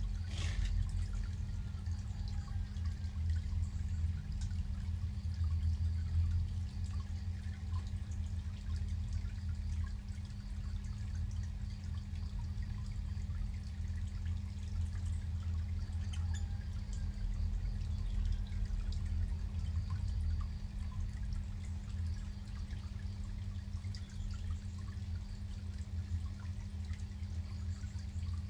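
Water pouring and trickling steadily into a pond, with a constant low hum underneath.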